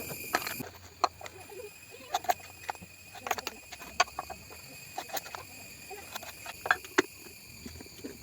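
Scattered light clicks and taps at an irregular pace, a few of them sharper, from small hard parts being handled and knocked together.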